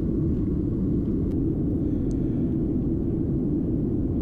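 Steady low rumble of a passenger airliner in flight, its engine and airflow noise heard from inside the cabin.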